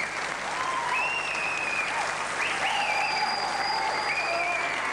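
Studio audience applauding, with several long, high whistles over the clapping.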